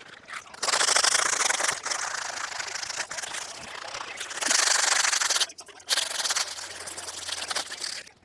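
Wood being sanded on the coop pieces: a steady rasping hiss that stops briefly about five and a half seconds in, then resumes and stops just before the end.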